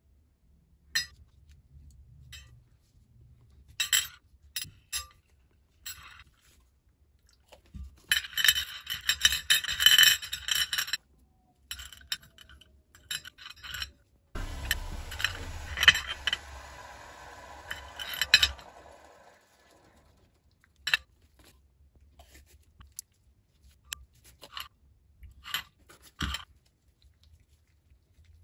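Small steel rifle parts clinking and scraping against a ceramic plate as they are handled and scrubbed, in scattered ticks with a busy run of clinks about a third of the way in. About halfway there is a few seconds of steady hiss, broken by clinks.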